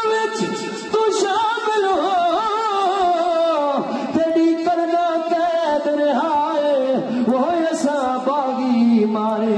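A man singing a Shia mourning lament in a slow, wavering melody with long held notes, with no instruments.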